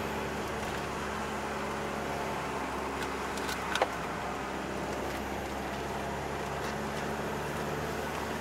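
Steady engine and road noise heard inside a Volkswagen T5 van's cabin while driving, with a low hum throughout and a few light clicks about three to four seconds in.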